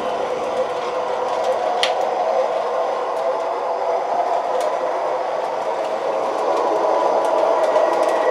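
O-gauge model PCC streetcars (MTH Proto-Sound 3) running on three-rail track, a steady rumble of wheels and motors, with a couple of sharp clicks. A faint high steady tone comes in near the end.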